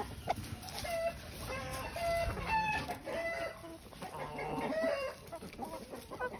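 Mixed flock of chickens clucking while feeding on greens: a string of short clucks and calls from several birds, some overlapping.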